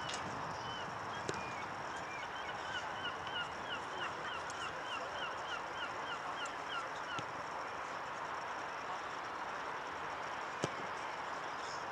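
A bird calling a quick run of about a dozen short, hooked notes, roughly two a second, over steady open-air background noise. A single sharp knock sounds near the end.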